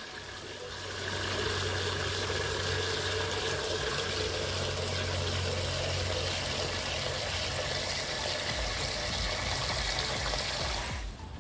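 Water from a garden hose pouring into a plastic bucket: a steady splashing fill, with a low steady hum underneath. It stops near the end.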